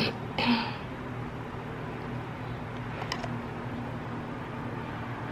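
Steady low hum of indoor room tone. A brief rustle comes about half a second in, and a faint click about three seconds in.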